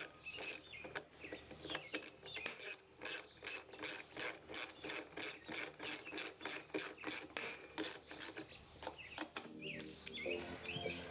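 A metal rod scraped rapidly back and forth inside a port of a Briggs & Stratton 625EX lawnmower engine's plastic intake housing. It makes about three rasping strokes a second and stops about nine seconds in.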